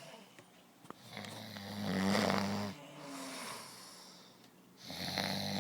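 Heavy snoring: a long loud snore about a second in, a softer breath, then another loud snore starting near the end.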